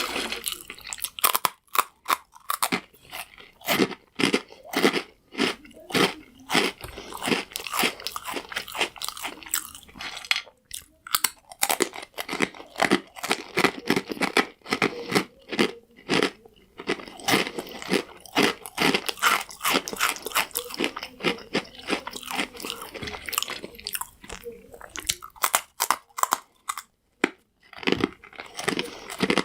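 Close-miked eating of crunchy croutons: bites and chewing give a fast, irregular run of sharp crunches, with a couple of short pauses.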